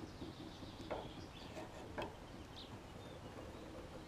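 Faint outdoor ambience with a few faint bird chirps and two light clicks, about one and two seconds in.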